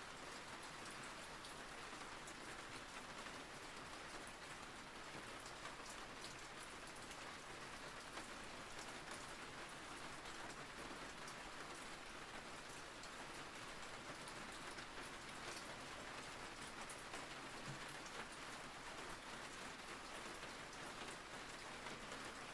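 Steady rain falling on a surface, with a fine patter of individual drops.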